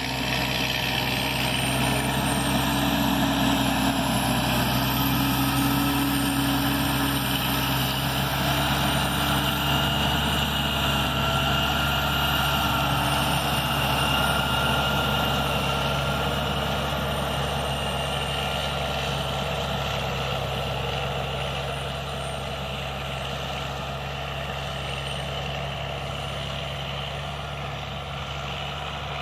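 Kässbohrer PistenBully 600 W Polar snowcat's Mercedes-Benz OM 460 LA 12.8-litre inline-six diesel running steadily under load as the machine drives away, fading over the last several seconds.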